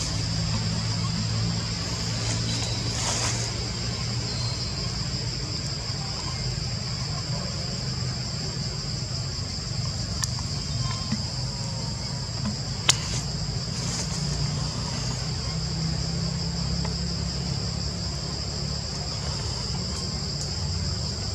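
Steady high drone of insects in the forest, with a low rumble underneath and a single sharp click about thirteen seconds in.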